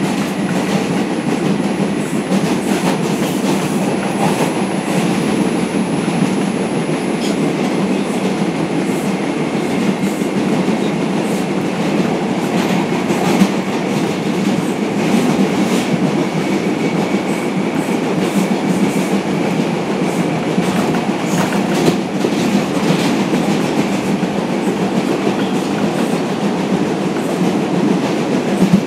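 R142 subway car running at speed between stations, heard from inside the car: a steady loud rumble of wheels on rail with irregular clacks all the way through.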